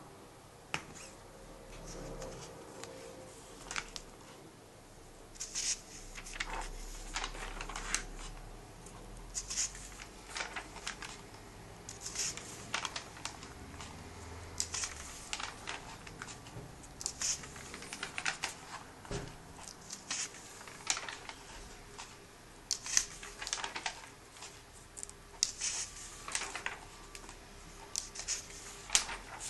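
Pages of a comic book being turned by hand one after another: repeated short paper swishes and flaps, with light rustling of the paper in between.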